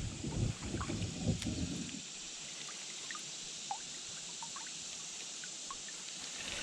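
Steady hiss of running creek water, with low rumbling knocks in the first two seconds and a few faint short chirps scattered through.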